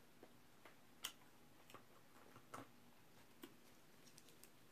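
Crispy fried chicken being torn apart by hand and eaten: sparse, irregular small crackles and clicks, the loudest about a second in.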